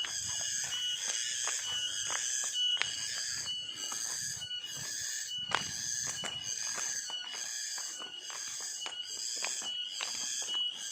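A high-pitched chorus of forest insects, swelling and fading in a steady pulse about once or twice a second, with a short, thin, repeated tone above it. Scattered sharp clicks and ticks run through it.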